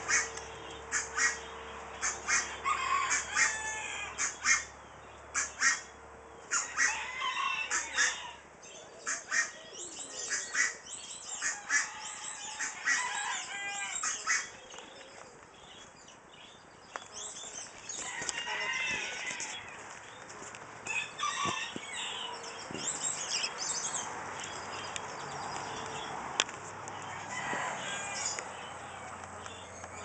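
Chickens and other fowl in their pens calling, many short loud calls overlapping, busiest in the first half and more spread out later.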